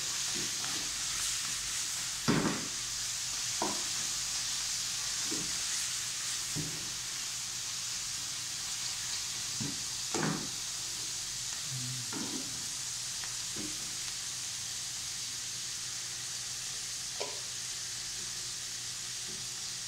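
Chopped pickled greens (suancai) sizzling steadily in a hot wok, with a few brief knocks and scrapes of the spatula against the pan, the loudest about two seconds in.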